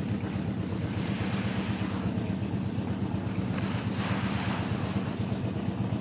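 Construction machinery engine running steadily with a low, even drone and a hiss over it.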